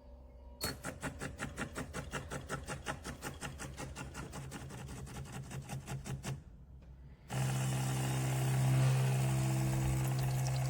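De'Longhi La Specialista Touch espresso machine working: a rapid, even ticking of about six or seven pulses a second for some six seconds, then after a brief lull a steady pump hum that starts about seven seconds in.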